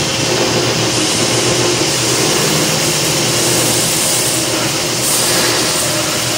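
Stationary belt sander running steadily, its abrasive belt grinding the steel edge of an iceboat runner held in a wooden holder, with a steady hum under a hiss that swells slightly now and then as the steel is pressed to the belt.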